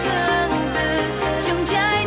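Background pop music with a steady beat, bass notes and a gliding melody line.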